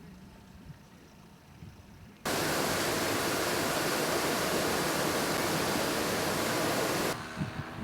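A quiet stretch, then a steady rushing hiss that starts abruptly about two seconds in and cuts off abruptly near the end.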